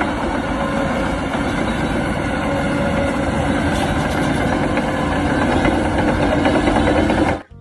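Shantui DH17 crawler bulldozer running steadily as it pushes soil with its blade. The diesel engine drones at a constant, heavy level and cuts off abruptly near the end.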